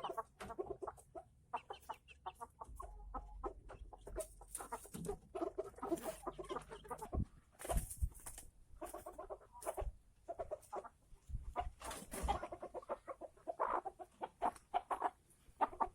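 Chickens clucking, many short calls one after another, with a few sharp clicks among them.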